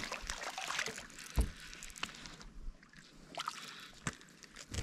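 Water lapping softly against a small boat's hull, with a few scattered light knocks.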